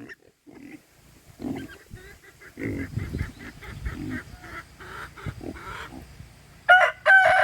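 Rooster crowing loudly, starting near the end and carrying on past it. Before that come several seconds of softer, quickly repeated poultry calls.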